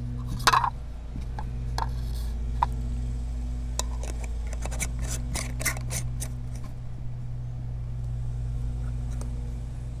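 Small metal cans of PVC primer and cement handled on a plastic workbench: a sharp clack about half a second in, then a run of light clicks and taps between about four and six and a half seconds in as the cans are set down and their screw lids worked. A steady low hum runs underneath.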